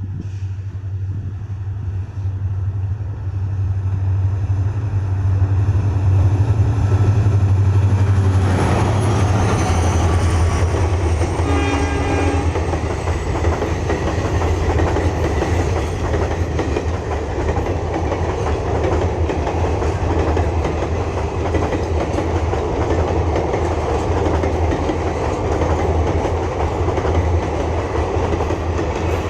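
EMD two-stroke diesel locomotive passing with its deep engine hum, growing louder as it approaches, then the rumble and clatter of the train's wheels and carriages going by. A short horn blast sounds about twelve seconds in.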